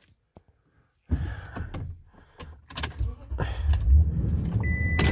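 A vehicle engine running with a steady low hum, joined by knocks and clatter of handling, after a second of near silence at the start. A short high electronic beep sounds near the end.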